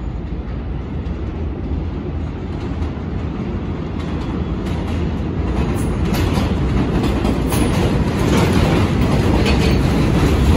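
Subway work train rolling past on elevated track: a rumble of wheels on rail that grows steadily louder, with wheel clicks over the rail joints from about four seconds in.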